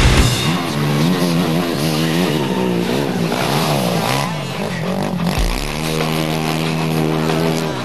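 Motocross dirt bike engine revving, its pitch rising and falling again and again under the throttle, then held at a steady pitch for the last couple of seconds.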